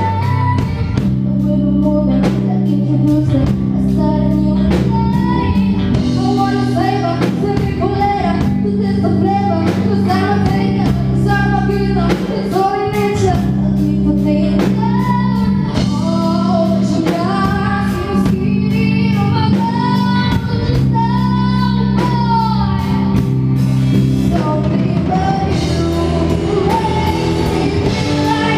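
Live rock band playing: electric guitars and a drum kit keep a steady beat under a sung lead vocal melody.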